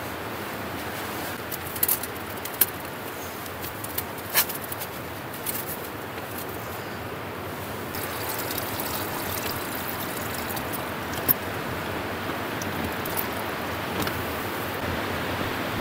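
Strong wind blowing steadily, a little louder about halfway through, with a few sharp clicks and taps scattered through it.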